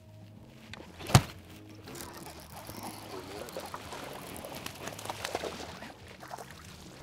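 A sharp knock about a second in, then several seconds of irregular water splashing on a boat.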